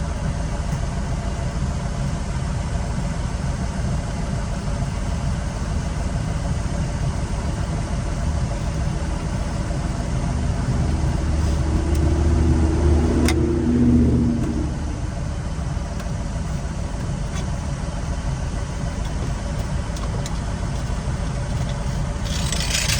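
Steady low rumble of motor vehicle noise, swelling for a few seconds about ten seconds in as one vehicle grows louder and fades, with a single sharp click partway through the swell.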